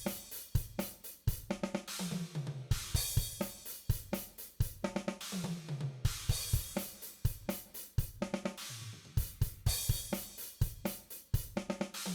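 Virtual drum kit (DrumGizmo samples) playing back a groove of kick, snare, hi-hat and cymbals, with a falling run of toms about every three to four seconds. It plays through a drum-room reverb preset that is being set up to imitate the room microphones.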